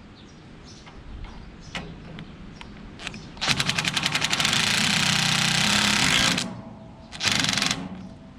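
An impact wrench hammering a bolt tight in a burst of about three seconds, followed a second later by a shorter second burst. It is tightening the chain drive on a small square baler's pickup.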